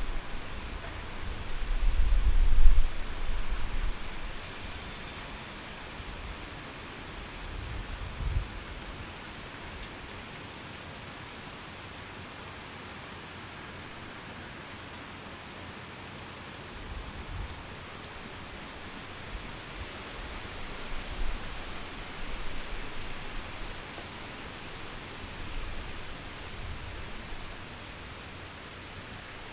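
Heavy rain falling steadily in a thunderstorm, with low rolls of thunder, the loudest about two to three seconds in and fainter ones later.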